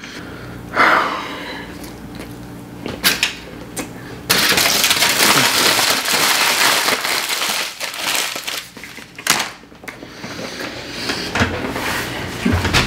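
Aluminium foil being crumpled up by hand: a dense crinkling crackle that starts sharply about four seconds in and goes on for about four seconds, with softer rustles and clicks of handling around it.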